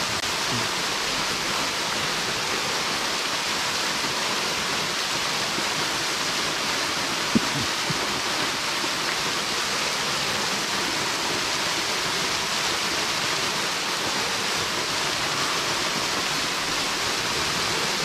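Small waterfall spilling steadily into a shallow pool, an even, unbroken rush of falling water. A single brief knock comes about seven seconds in, with a fainter one half a second later.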